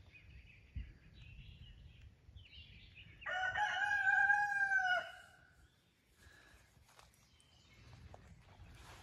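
A rooster crowing once: a single drawn-out call of nearly two seconds, starting about three seconds in. Faint chirps of small birds come before it.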